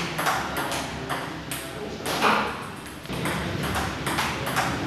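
Table tennis rally: the celluloid-type ball clicking off rubber paddles and bouncing on a Yinhe table in a quick string of hits, about two to three a second.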